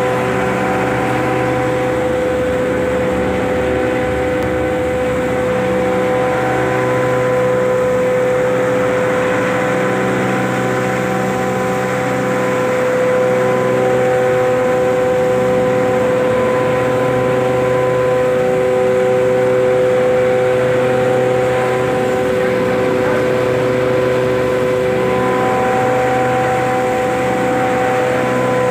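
Red chilli pulverizer grinder running steadily while grinding dried red chillies: a loud, even machine drone with a steady whining tone.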